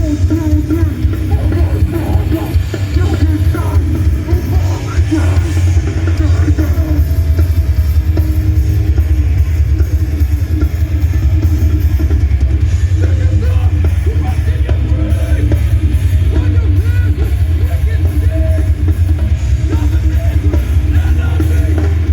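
Metallic hardcore band playing live at full volume: heavy distorted guitars and pounding drums with a dense, boomy low end. Recorded on a phone held up in the crowd.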